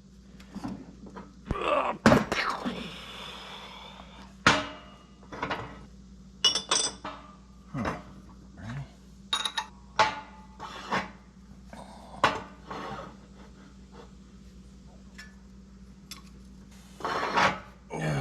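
Irregular metal clinks and knocks, some with a short metallic ring, as steel parts of a tractor wheel hub are handled and fitted, over a faint steady hum.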